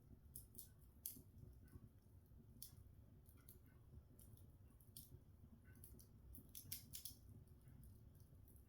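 Open wood log fire crackling faintly: scattered sharp ticks and pops at irregular intervals, with a quick cluster about seven seconds in, over a low steady rumble.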